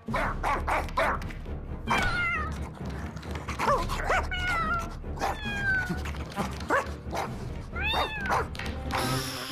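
Cartoon animal vocal sounds: a string of short whines and yelps that glide up and down in pitch, with some clicks between them, over quiet background music.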